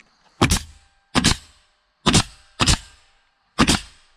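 DeWalt cordless nail gun firing five nails in quick succession, each a sharp bang, driving nails through wooden trim boards into a post.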